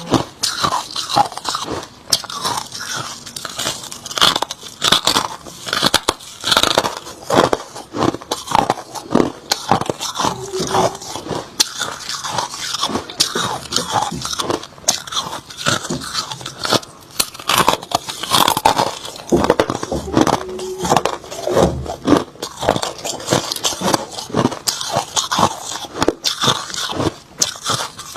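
A person biting and chewing hard crushed ice close to the microphone: a dense, irregular run of sharp crunches and cracks.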